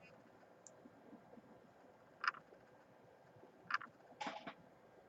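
Four faint, short clicks spread across a few seconds, two of them close together near the end, from trading cards and their plastic holders being handled.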